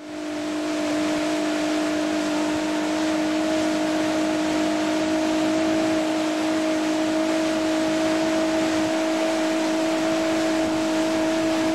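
Motorboat under way at a steady cruising speed: an even engine hum holding two constant tones, under a loud rush of wind and water from the wake.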